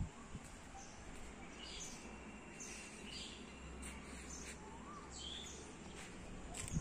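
Birds chirping, with scattered short high chirps and a few rising-and-falling calls, over a faint low outdoor rumble. A soft thump comes near the end.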